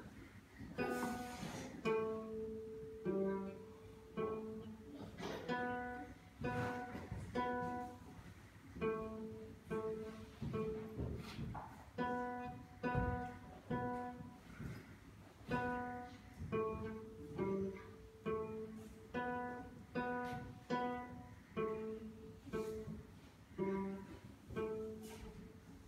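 A small classical guitar played solo: a simple tune of plucked single notes over repeated lower notes, in a steady, even rhythm.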